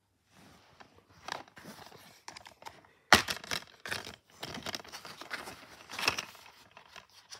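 Plastic DVD keep case being handled and opened: scraping and clattering of the plastic, with a sharp snap about three seconds in as the case comes open, then rustling of the case and its paper insert.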